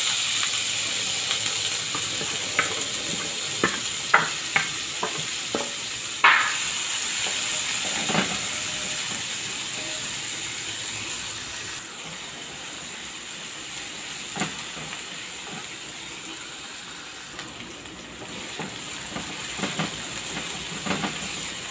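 Chopped onion, bell pepper, tomato and garlic sizzling in hot oil in a nonstick frying pan as a sofrito, the sizzle loudest at first and dying down steadily. A wooden spoon knocks and scrapes against the pan a dozen or so times as the vegetables are stirred, most often in the first several seconds.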